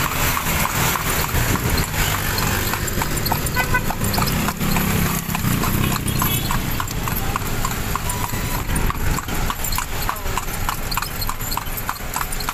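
Hooves of a kalesa horse clip-clopping on an asphalt street in a steady, even rhythm as it pulls the carriage, over the noise of city traffic.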